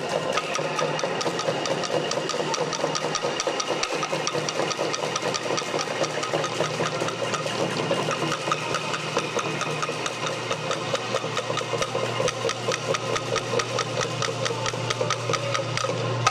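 Bamboo instrument ensemble playing: angklung shaken in a fast, even rattle of pitched bamboo tones, with bamboo tubes tapped by sticks, over a low steady hum.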